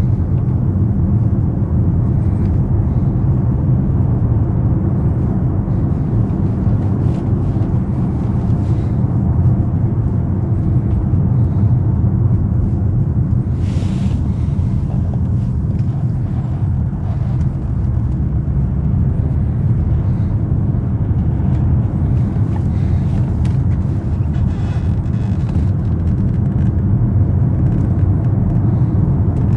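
BMW 750i's 4.4-litre twin-turbo V8 and its road noise while driving, a steady low rumble with no big revs.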